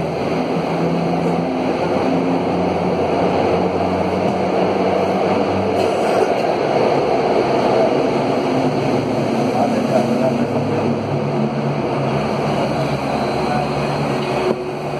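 Alstom AS 02 steel-wheeled metro train running at speed, heard from inside the car: a steady rumble of steel wheels on rail with a hum from the drive that shifts in pitch a few times.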